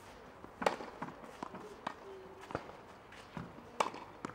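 Tennis racket striking a ball on a serve, a sharp pop about a second in, then a second hard hit near the end, with lighter knocks of the ball bouncing on the clay court in between.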